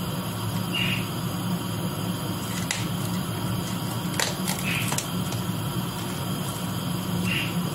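A roll of plastic cling film being handled and pulled to cover a pot: scattered sharp clicks and short crackles over a steady low hum.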